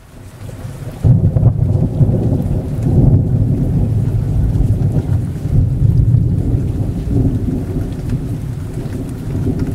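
Loud, steady low rumbling noise that swells in over the first second and then carries on without a break.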